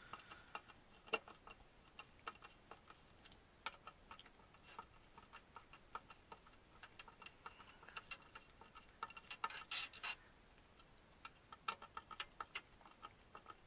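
Faint, irregular small clicks and ticks of a hand screwdriver turning screws into a model kit's chassis plates, coming in quick clusters with short gaps between.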